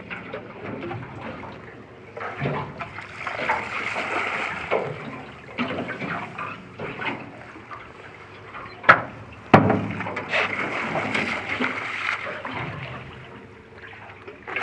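Water splashing and sloshing unevenly, with two sharp knocks a little past the middle, under a second apart.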